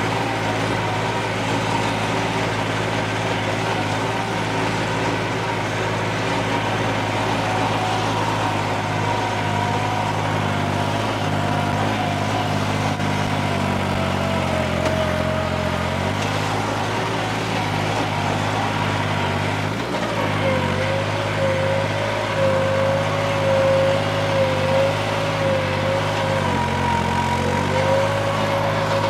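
New Holland 3630 tractor's three-cylinder diesel engine working hard under load, pulling a tillage implement through hard, dry soil. The engine note dips and recovers a couple of times, with a wavering high whine over it.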